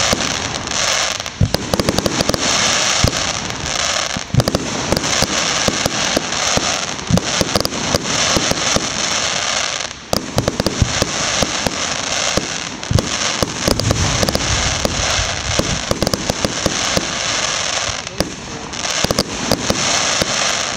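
Aerial fireworks going off in rapid succession: a dense run of sharp pops and bangs over a continuous crackling, dipping briefly about halfway through before picking up again.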